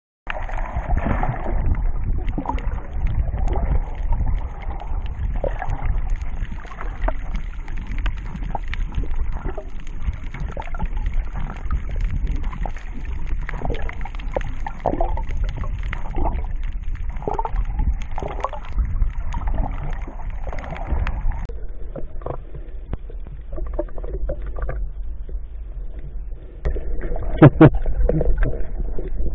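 Muffled water noise heard by an underwater camera: a steady low rumble with scattered short swishes, growing louder near the end.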